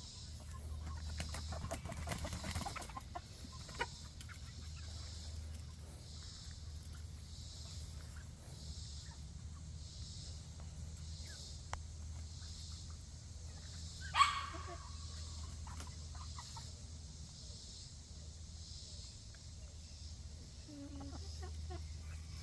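Backyard chickens clucking softly, with one short, louder falling squawk about two-thirds of the way through. A faint high pulsing and a steady low rumble run underneath.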